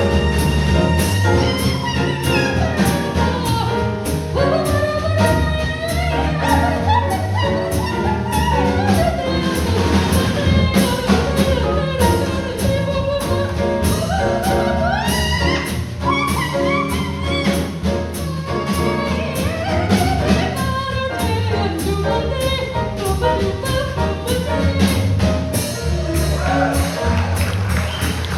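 Jazz music without words: a steady beat under a winding lead melody.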